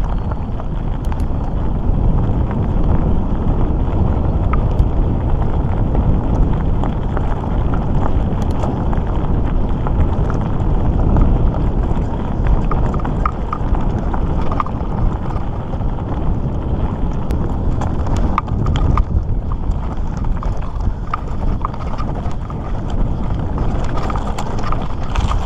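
Mountain bike riding over a loose gravel and dirt trail: a steady rumble of tyres on stones and wind on the microphone, with scattered clicks and rattles from stones and the bike.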